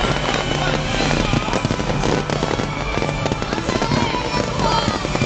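A fireworks display: dense, continuous crackling and popping from bursting shells, with music playing underneath.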